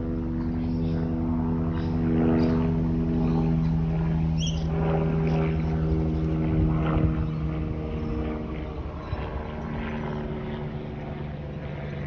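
Steady engine drone, its pitch shifting slightly a few times, with a few faint short clicks over it.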